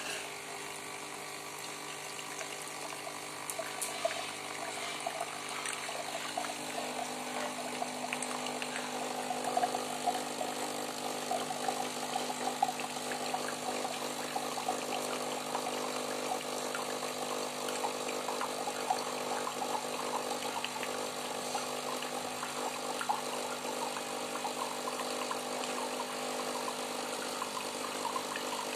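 Nescafé Dolce Gusto capsule machine brewing normally: its vibratory pump hums steadily as it forces water through a reusable capsule, and the stream splashes and bubbles into a glass, picking up a few seconds in.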